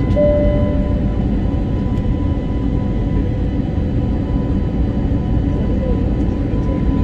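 Steady roar of a jet airliner's engines and rushing air heard inside the passenger cabin in flight, with thin steady whines running through it. A short, pure tone sounds briefly just after the start.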